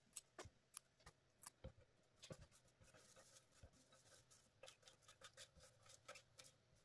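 Faint, scattered clicks and taps as fresh parsley is picked apart and chopped with a knife on a wooden cutting board. The taps come closer together in the second half.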